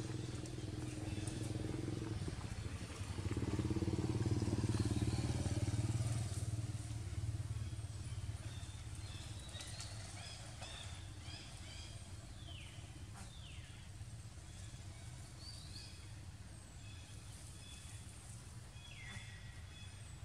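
A motorbike engine passing: it grows louder about three seconds in, is loudest for a few seconds, then fades away. Short high chirps follow in the second half.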